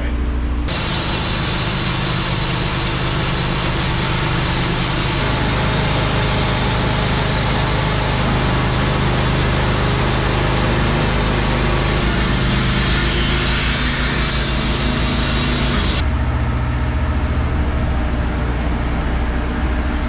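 Wood-Mizer LT15 Wide portable band sawmill cutting a white pine log. The engine runs steadily while the band blade saws through the wood with a dense, hissing rasp. The cut starts under a second in and stops about four seconds before the end, leaving the engine running on its own.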